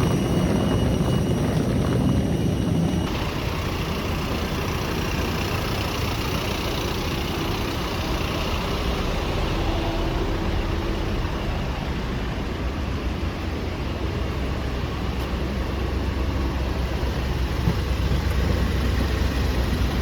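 Steady engine rumble and running noise of a vehicle in motion, even throughout, with a slight change in the noise about three seconds in.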